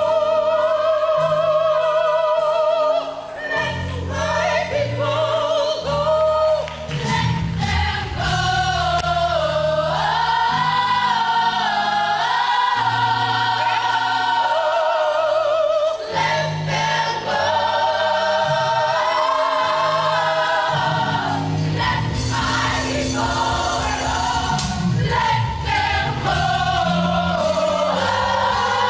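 Choir singing a gospel-style sacred song over low held accompaniment chords, the leading voice with a wide vibrato.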